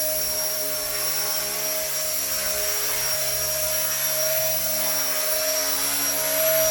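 RC ERA 1/48 scale Huey micro RC helicopter in flight carrying a loaded cargo basket: a steady electric motor whine and rotor buzz, its pitch wavering slightly as the throttle shifts.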